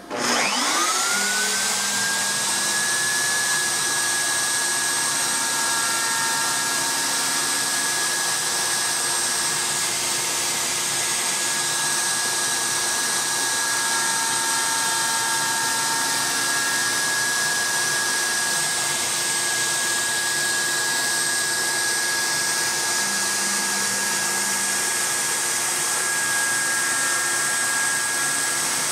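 CNC router spindle spinning up to a steady high whine in the first second or two, then running steadily while its V-cutter bit cuts the 45-degree chamfer along the edges of wooden 1911 pistol grip blanks.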